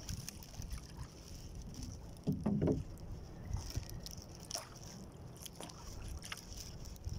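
A small outrigger boat rocking on the water: water lapping at the hull under a steady low wind noise. There is a louder bump a little over two seconds in and a few light knocks later.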